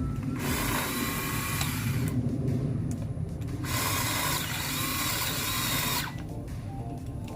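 Craftsman 20-volt cordless pole chainsaw running in two bursts as the trigger is pulled and released, each lasting about two seconds, with the electric motor whining and the chain whirring.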